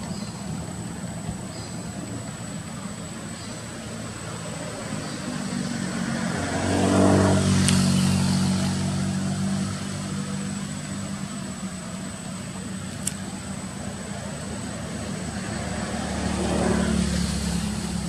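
Motor vehicles passing by: an engine hum swells to a peak about seven seconds in and fades away, and a second vehicle passes near the end.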